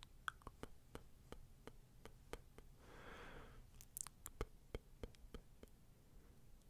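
Faint close-miked ASMR sounds: soft, irregular clicks and ticks, with one soft breathy whoosh about three seconds in.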